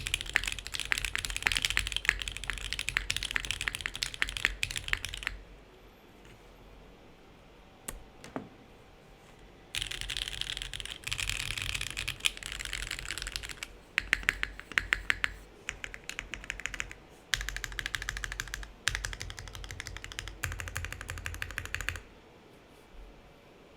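SingaKBD Kohaku custom mechanical keyboard with linear Alpaca switches, a polycarbonate plate and GMK keycaps being typed on fast: dense runs of key clacks. After the first run there is a pause of about four seconds with only a couple of single keystrokes, then several more runs with short breaks. The typing stops a couple of seconds before the end, with one last tap.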